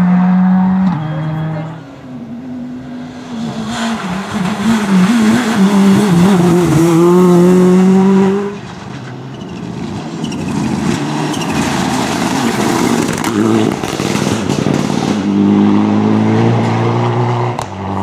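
Rally cars at speed on a gravel stage, one after another: engines revving hard and changing gear, with tyre and gravel noise. The first car runs loud for the opening eight seconds or so and then cuts off sharply. Another is heard approaching, its revs climbing in steps through the gears near the end.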